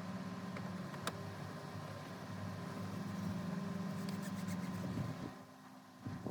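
A motor-driven machine running with a steady hum, with a sharp click about a second in; it cuts off a little after five seconds.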